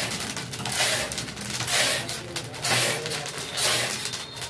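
Black chickpeas being dry-roasted in hot sand and stirred in a large kadha (roasting pan) with a long-handled scraper. It gives a rhythmic scraping and rustling stroke about once a second.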